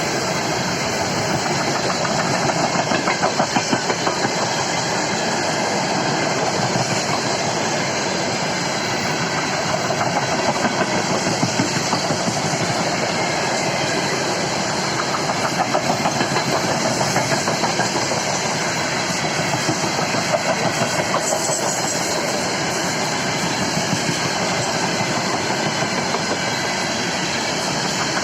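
Freight train rolling past: a steady rumble with the wagons' wheels clattering in short groups of quick beats every few seconds.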